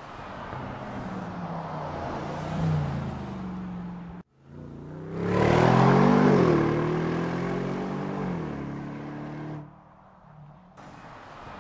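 Bentley Continental GT V8 S's 4.0-litre twin-turbo V8 running under acceleration, its pitch rising and falling. About four seconds in the sound cuts off abruptly, then returns at its loudest, rising and then falling in pitch, before dropping to a quieter level near the end.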